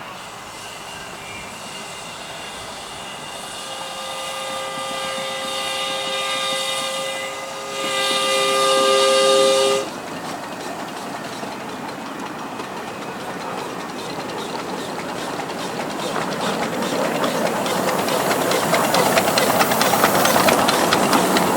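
Miniature 7¼-inch gauge steam locomotive's chime whistle: a long blast, then a second, louder blast that stops suddenly. Then the train runs in with a rapid clatter that grows steadily louder as it nears.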